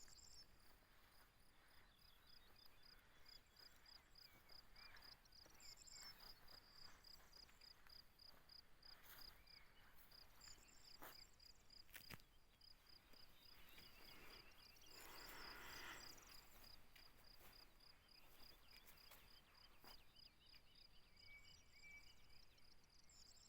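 Faint rural ambience: an insect chirping in a steady high pulse, about three chirps a second, with occasional faint bird chirps. A few sharp clicks and a brief rustle about fifteen seconds in.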